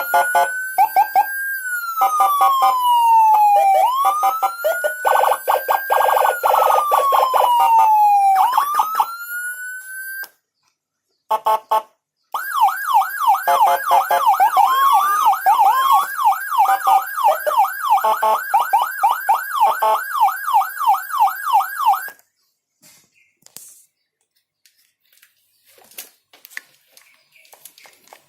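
Electronic vehicle siren module through its loudspeaker, sounding a slow wail that rises and falls, broken by stuttering horn-like bursts. After a brief pause it switches to a fast yelp of about two to three sweeps a second, which cuts off near the end, leaving only faint clicks.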